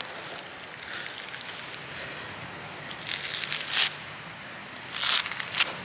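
Fibrous coconut husk being ripped off by hand against a driftwood stake: dry, crackling tears in two bursts, about three and five seconds in.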